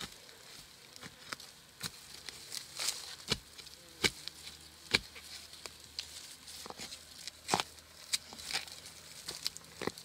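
Dry bamboo leaf litter crackling, with about a dozen irregular sharp knocks and snaps as bamboo shoots are cut free with a knife.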